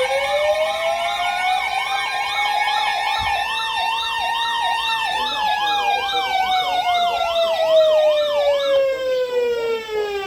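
Electronic warning sirens sounding together: a slow wail that rises and then falls over several seconds, layered with a quicker sweeping tone that goes up and down about twice a second and stops near the end.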